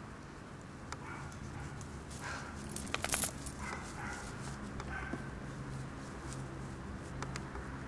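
Five-week-old Doberman puppies making small whining sounds. A cluster of sharp clicks comes about three seconds in, over a low steady hum.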